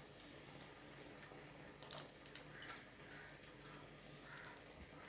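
Near silence: a clay pot of fish curry simmering on the stove, with a few faint, scattered ticks and pops, the clearest about two seconds in.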